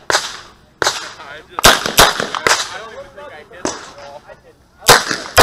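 Chiappa Rhino revolver firing .38 Special rounds in a string of shots. The loudest come in two quick pairs, one about two seconds in and one at the very end, with single shots between them.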